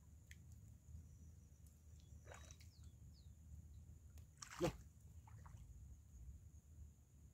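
Bare feet stepping and sloshing in shallow water at a sandy shoreline: faint small splashes, with one sharp, louder splash about four and a half seconds in.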